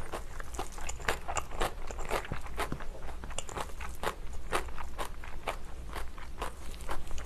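Close-up chewing of crunchy kimchi: repeated moist crunches and crackles from the mouth, with a spoon scraping now and then in a bowl.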